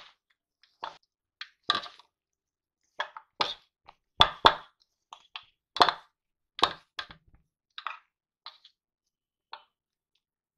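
Hands mixing a crumbly jaggery and dry-fruit mixture in a metal bowl: irregular short scrapes and knocks against the metal, about a dozen, loudest around the middle.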